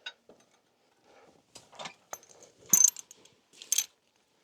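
Metal harness chains and hooks clinking as a horse team is hitched on to the plough: a few short bursts of jingling, the loudest near the end.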